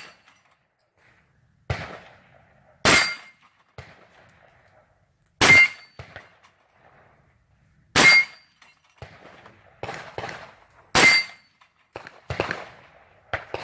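Rifle shots: four loud shots roughly every two and a half to three seconds, each followed by a brief ringing tone. Fainter bangs fall between them.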